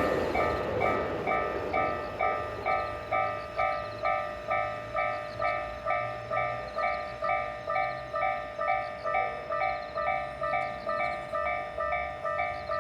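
Japanese level crossing's electronic warning bell ringing steadily, about two dings a second. A passing train's noise dies away at the very start.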